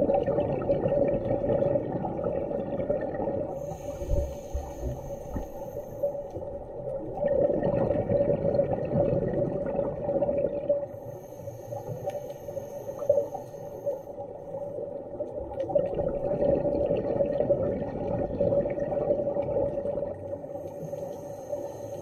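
Underwater scuba-dive audio: a diver breathing through a regulator, with a rushing burst of exhaled bubbles every few seconds over a steady hum.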